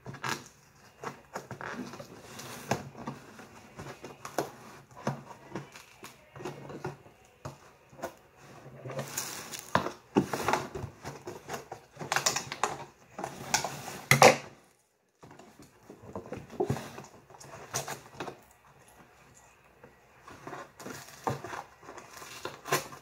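Fingers picking and scratching at the tape on a cardboard toy box, with crinkling, tapping and a few short tearing sounds as she tries to pry it open.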